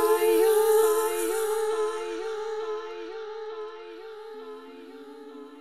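Wordless layered vocals from an isolated studio vocal track: a held sung note with short repeated vocal notes beneath it, about two a second, fading out steadily. A lower held vocal note comes in near the end.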